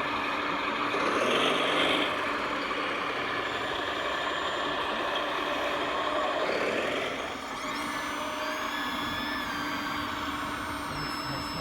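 Radio-controlled model construction machines working over a steady hum. From about 7.5 s a high electric whine steps up and down in pitch as the motors change speed, typical of the micro-hydraulic pump of a model excavator.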